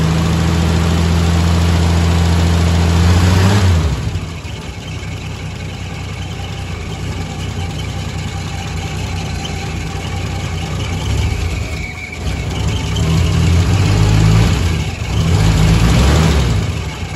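1967 Willys Rural's six-cylinder engine running: held at raised revs for about the first four seconds, dropping back to a quieter steady idle, then revved up twice near the end. Its rumble is quiet and smooth.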